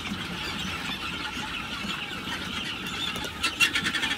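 Dense, steady chorus of many young guinea fowl keets peeping. A run of quick clicks and rustles joins in near the end.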